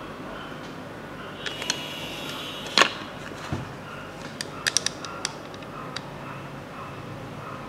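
Plastic clicks and knocks from a Play-Doh ice cream playset being handled, over a steady background hiss. There is one sharp knock about three seconds in and a quick run of small clicks around five seconds.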